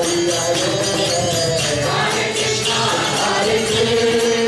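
A group of voices singing a devotional chant (kirtan), with small hand cymbals jingling on a steady beat of about four strokes a second.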